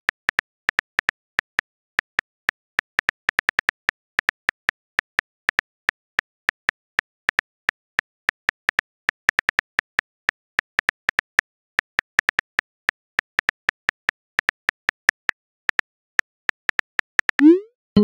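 Phone keyboard typing clicks, a few quick taps a second at an uneven pace, as a text message is typed. Near the end a short rising whoosh as the message is sent.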